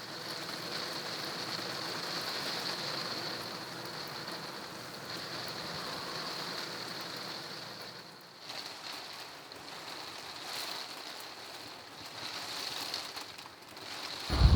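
Heavy typhoon rain falling, a steady hiss that eases a little about halfway through, with a sudden loud low thump right at the end.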